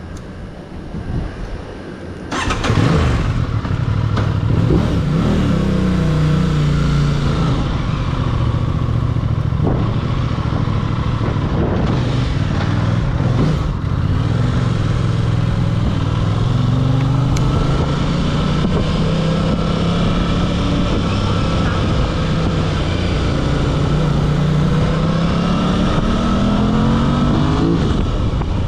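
Aprilia RS 660 parallel-twin engine and exhaust under way, getting much louder about two and a half seconds in as the rider opens the throttle. The engine note climbs and falls repeatedly as the bike accelerates, shifts and eases off, and climbs again near the end.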